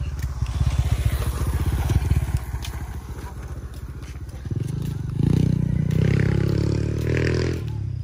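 Small motorcycle engine running close by as it comes up and passes: a low pulsing note at first, then from about halfway a louder, steadier engine tone that drops away just before the end.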